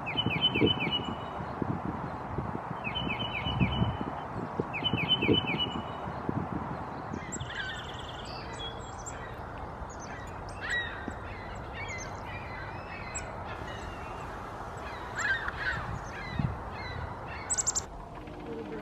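Wild birds calling: three short bursts of quick, repeated call notes over low thumps, then, about halfway through, a busier mix of many varied, higher chirps and calls.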